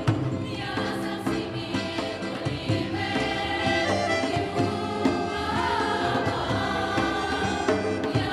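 Mixed folk choir, men's and women's voices, singing a song in harmony, accompanied by a small instrumental ensemble that includes a double bass.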